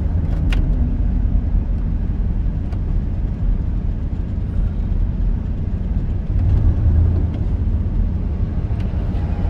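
Steady low rumble of road and engine noise inside a car's cabin while the car drives slowly, with a few faint ticks.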